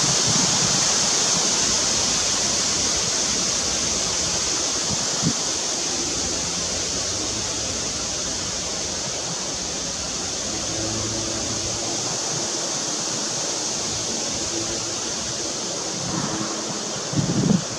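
A steady, even rushing noise, like running water, with faint short low tones in the second half and a brief low thump about half a second before the end.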